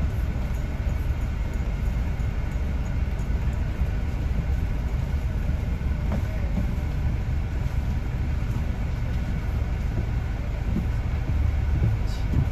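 Steady low rumble of a double-decker bus's engine and tyres, heard from inside the upper deck while it drives along in traffic.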